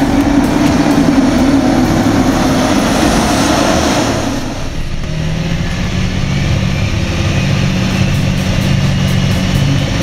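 Diesel engine of a large John Deere tractor running in a corn field. About four and a half seconds in it changes to the steady, lower drone of a John Deere tractor engine heard from inside the cab while driving on a road.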